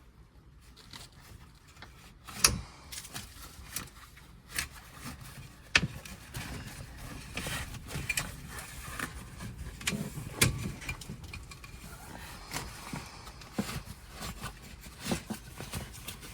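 Scattered knocks, clicks and scraping as the pop-up roof's canvas and rail are worked free by hand, with a few sharper knocks standing out.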